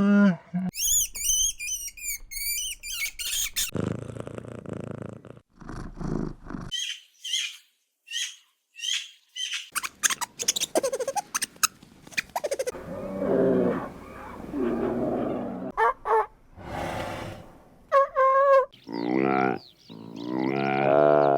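Several different animal calls one after another. There are high, quickly repeated bird-like chirps, and lower drawn-out calls whose pitch wavers, with a short quiet gap in the middle.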